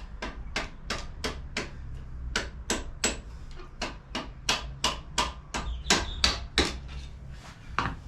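Hand tool working the lower mounting bolt of the scooter's rear shock absorber: a steady run of short, sharp metallic clicks, about three to four a second.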